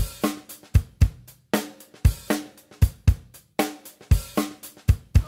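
Background music with a steady drum-kit beat of bass drum, snare and cymbal hits, about two hits a second.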